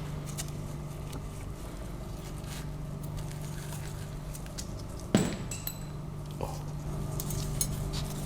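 Metal parts of a rotary engine being handled during disassembly: scattered light clicks and taps, and one sharp metallic clank that rings briefly about five seconds in, over a steady low hum.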